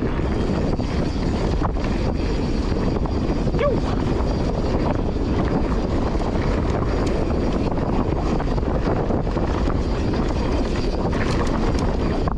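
Steady wind rush on an action camera's microphone as a mountain bike descends dry dirt singletrack at speed, with rumble and light clicking from the tyres and bike on the trail.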